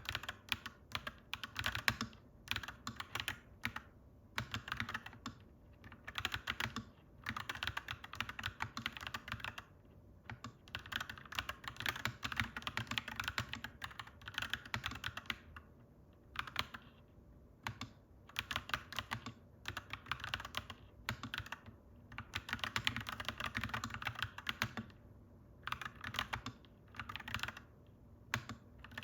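Clacky mechanical keyboard being typed on in quick runs of keystrokes, broken by short pauses.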